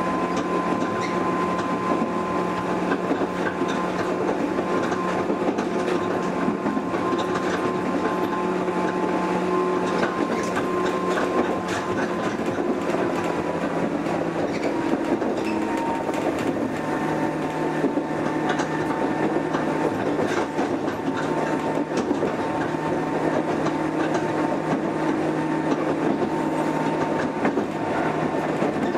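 Cabin running sound of a JR 103 series electric train (3500 subseries) under way: a steady traction-motor hum and whine over wheel and track noise, with the click of rail joints. The motor tones drop a little in pitch about halfway through.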